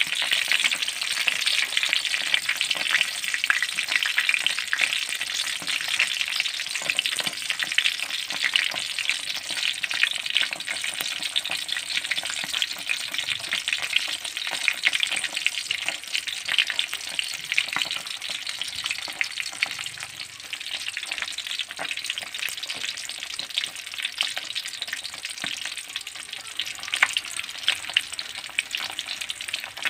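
Milkfish frying in hot oil in a wok: a steady, dense sizzle of fine crackles that eases a little after about twenty seconds. The big spattering pops have stopped, a sign the fish has dried out and is nearly done.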